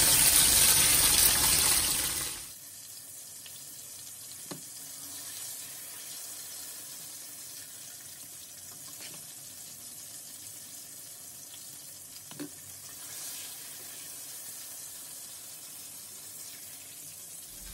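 Hot oil sizzling in a skillet as chili-dipped tortillas are fried briefly for enchiladas. The sizzle is loud for the first couple of seconds, then drops suddenly to a faint sizzle, with a few light clicks of utensils.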